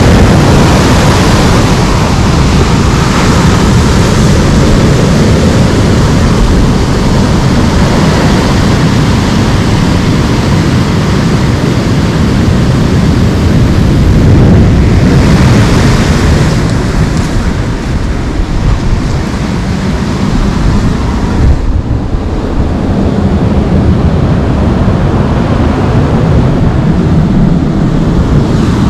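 Wind rushing over the microphone of a camera riding along on a bicycle: a loud, steady, rumbling noise that dips briefly a little past halfway.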